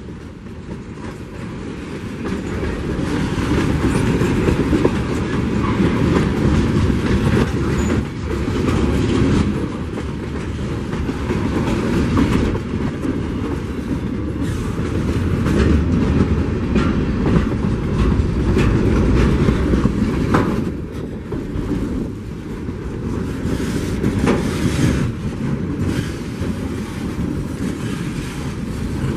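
Finger Lakes Railway freight train's cars rolling past: a loud, continuous rumble of steel wheels on rail, with repeated clicking as the wheels cross rail joints.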